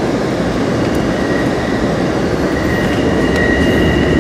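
Amtrak California Zephyr passenger car rolling along the rails, heard from inside the car: a steady rumble of wheels on track. A thin, high wheel squeal comes in about a second in and grows louder toward the end.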